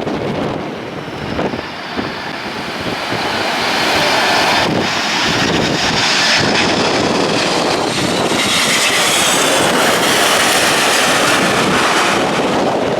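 Jet airliner engines at go-around thrust passing overhead, a high whine that grows louder from about three seconds in and stays loud, with strong wind buffeting the microphone.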